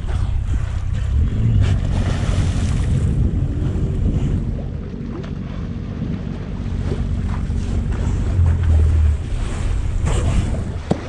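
Boat under way at sea: a steady low motor hum with water rushing past the hull and wind buffeting the microphone in gusts.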